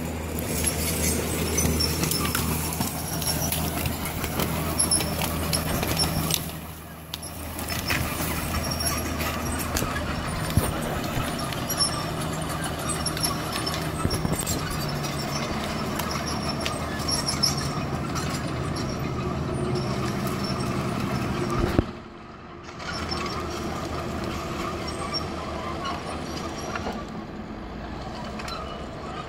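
1979 International Dresser TD8G crawler dozer running, its diesel engine humming steadily while the steel tracks squeal. The sound dips briefly twice, about seven and twenty-two seconds in.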